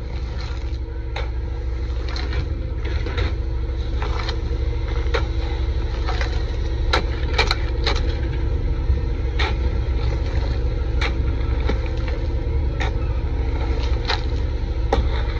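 Excavator engine running steadily under load, with sharp clacks and scrapes about once a second as the machine works.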